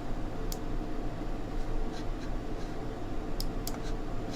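Steady low electrical hum with a few faint light clicks and scratches.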